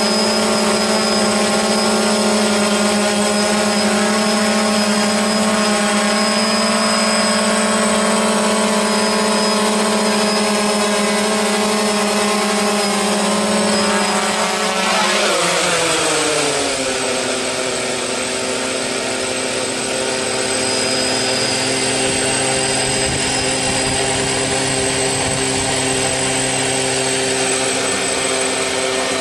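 DJI Phantom quadcopter's motors and propellers whining steadily with a high electronic whistle over it. About halfway through the pitch glides down and settles lower as the drone slows.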